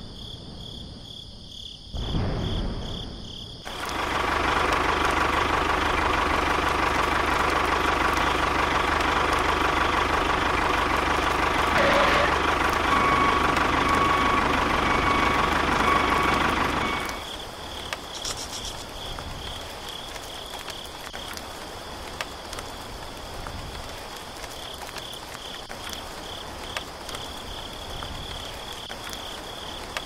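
Crickets chirping in a steady pulsing trill. From about four seconds in, a loud steady rushing noise covers it, then cuts off suddenly a little past halfway.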